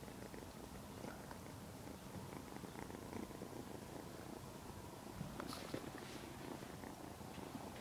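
Ragdoll kitten purring steadily while being stroked, close to the microphone, with a brief rustle of fur or cloth about five and a half seconds in.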